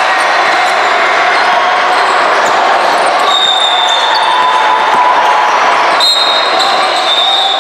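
Basketball game sounds in a gym hall: a basketball bouncing on the court over a steady din of crowd noise, with high squeaks about halfway through and again near the end.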